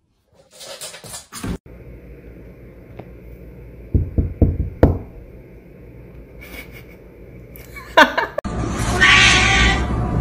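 Domestic cats meowing and yowling in several short bursts, the loudest a call that rises and falls in pitch about eight seconds in.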